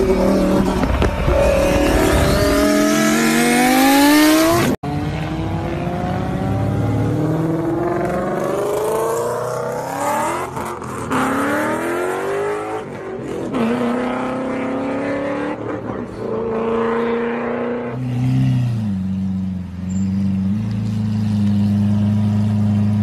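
Small electric RC buggy's motor and gears whining, the pitch climbing again and again as it accelerates, over tyre noise on the ground. The sound drops out for an instant about five seconds in. Near the end it settles into a steadier low hum.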